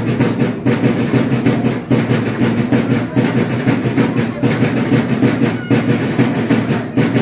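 Loud, dense din of a packed crowd, with a fast, steady rhythmic beat running through it.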